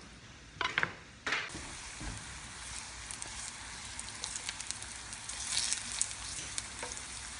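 A few sharp knife knocks on a cutting board in the first second or so, then yam slices frying in hot olive oil in a cast iron skillet: a steady sizzle full of fine crackling pops.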